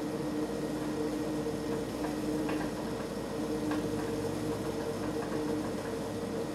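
Pot of water boiling on a stove: a steady rushing hum with two low droning tones that come and go, and a couple of faint ticks or pops about two and a half and nearly four seconds in.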